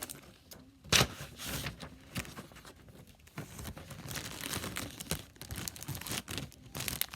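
Plastic candy wrapper being torn open and crinkled by hand, with a loud sharp crackle about a second in and steady crinkling through the second half.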